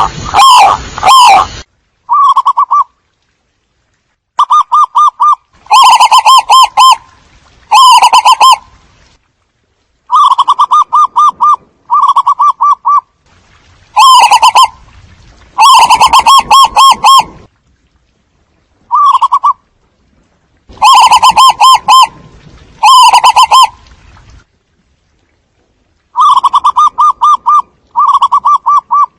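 Zebra doves cooing loudly, as a lure call to draw in a flock: about a dozen short phrases of quick, rolling coos, each about a second long, repeated with gaps of one to two seconds.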